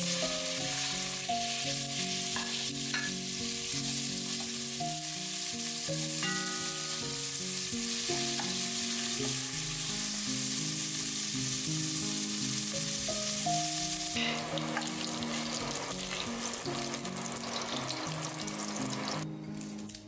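Chicken pieces sizzling as they sauté in hot oil in a pot, stirred with a wooden spoon; the sizzle cuts off about a second before the end. Soft background music plays underneath.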